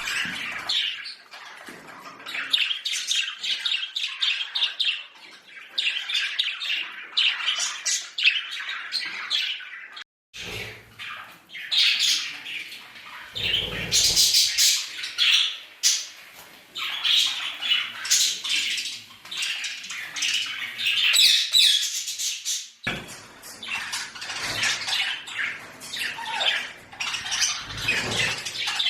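Pet budgerigars chattering, chirping and squawking continuously as a busy flock. The sound drops out for a moment about a third of the way through.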